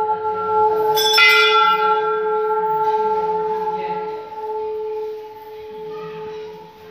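Hindu temple bell ringing: it is already sounding at the start, is struck again about a second in, and its long steady hum slowly fades.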